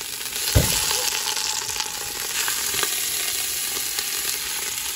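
Beef roast searing in hot oil in a stock pot: a steady sizzle with a few sharp pops, and one low thump about half a second in.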